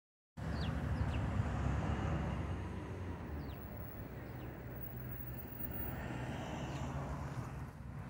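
A steady low rumble, with a handful of faint, short, falling chirps from sparrows scattered through it.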